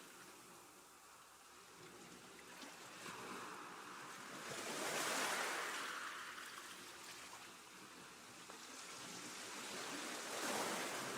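Choppy sea water washing and sloshing in rising and falling swells. The biggest surge comes about halfway through, and another builds near the end.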